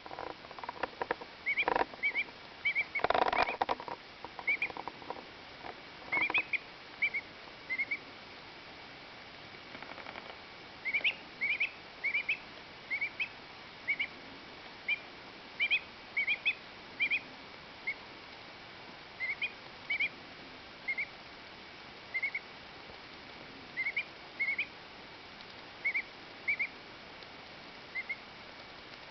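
A two-week-old duckling's short, high 'happy peeps', often in quick pairs, repeated every second or so: the contented call it gives while preening its feathers. A few louder rustling bursts come in the first few seconds.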